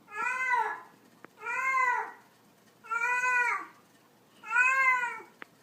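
Domestic cat meowing: four similar meows about one and a half seconds apart, each rising and then falling in pitch.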